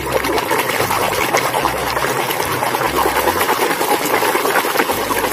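Muddy plastic toy box truck being washed: water running and splashing over it while it is rubbed clean, a steady, busy scrubbing noise.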